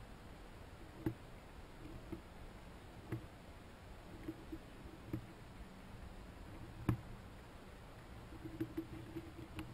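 Faint, irregular small clicks and taps of a chipmunk working at a corn cob, picking and shucking the kernels. There is a sharper click every second or two and a quick run of small taps near the end.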